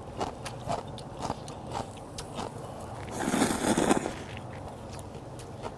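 Close-up eating sounds of warm noodle soup: small clicks of chewing and chopsticks in the bowl, then a loud slurp of noodles about three seconds in, lasting under a second.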